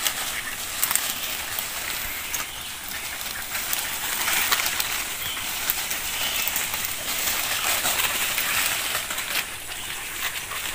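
Leaves and brush rustling, with frequent small twig cracks, as someone pushes through dense forest undergrowth.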